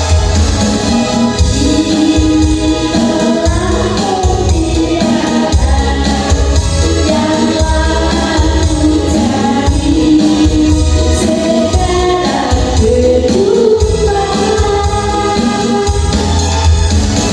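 Music: singing over a heavy pulsing bass, with light percussion.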